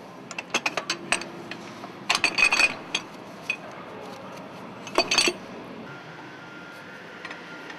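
Steel bracket pieces clinking and knocking against metal as they are handled and taken off between the cylinder head and the exhaust manifold of a marine diesel engine. The sound is scattered light metallic clinks with a brief ring, coming in several short clusters.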